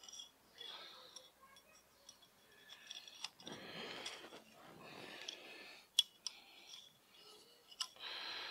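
Bonsai wire scraping and clicking against a bonsai pot as it is threaded through the drainage holes and bent into a cross to anchor the tree. Two longer scrapes in the middle, then a few sharp clicks.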